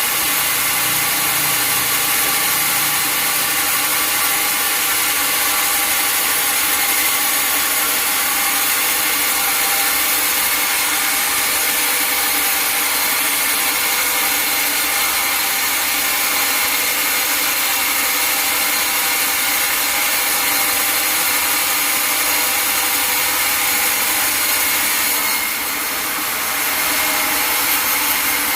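Sawmill saw cutting through a log: a steady, loud, dense hiss with several held tones running through it, dipping briefly near the end.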